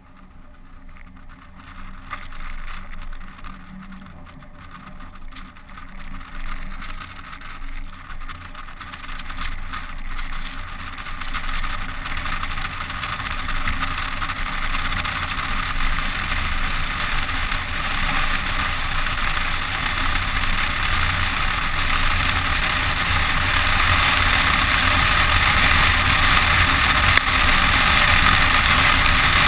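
SUV driving over deep snow, heard from a camera mounted on the outside of the body: engine hum with rushing wind and snow noise that grow steadily louder as it gathers speed.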